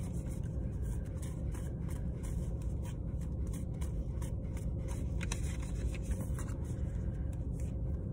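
Steady low rumble inside a car cabin, with faint rubbing and a few light clicks, most noticeable about five seconds in.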